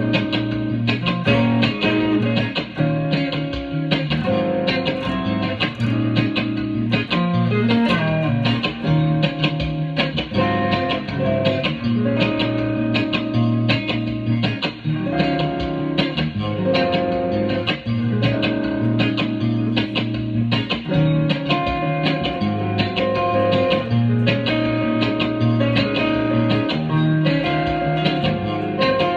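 Guitar music: plucked and strummed guitar notes with a bass line, playing steadily throughout.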